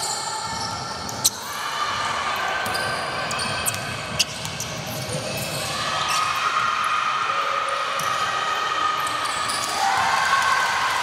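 Basketball game in play: the ball bouncing on the court, with two sharp knocks about one and four seconds in, over a steady background of voices calling out.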